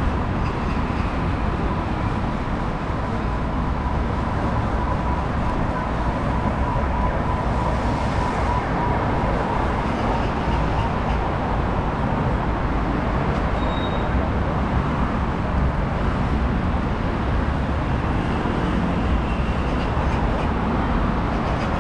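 Steady road traffic noise from a busy city street, with a faint steady tone in the first half.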